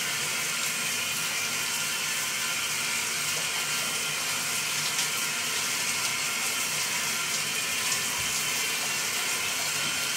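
Water running steadily in a bathtub.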